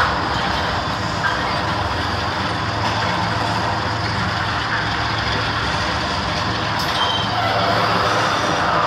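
Railroad tank cars of a freight train rolling past: a steady clatter and rumble of steel wheels on the rails that does not let up.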